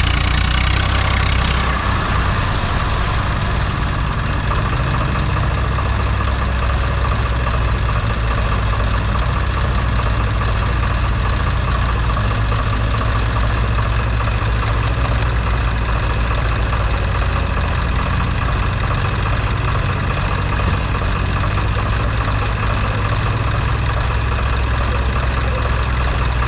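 Heavy diesel engine running steadily at a low, even speed. About two seconds in, some hiss in the upper range drops away.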